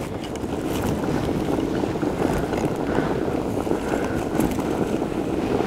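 Wind blowing on the microphone: a low, steady noise, with a few faint clicks.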